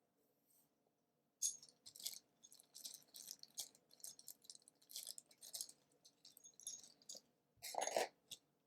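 Small, irregular metal clicks and light rattles from a precision screwdriver working the tiny bottom-case screws of a 2012 MacBook Pro. The screws are being taken out, with a longer, louder rattle near the end.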